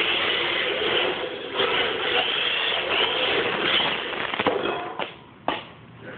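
Small electric RC car's motor and gears whirring as it drives. The whir fades about four and a half seconds in, and a few sharp knocks follow.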